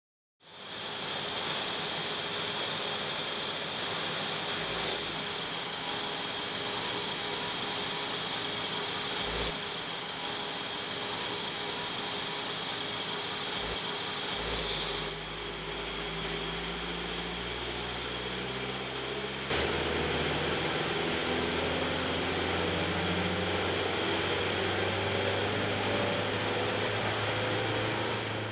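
Volkswagen car on a hub dynamometer accelerating at wide-open throttle, over a steady mechanical hum with a high whine. About halfway in the engine note rises, then climbs in several steps as the car gains speed, and it grows louder about two-thirds of the way in.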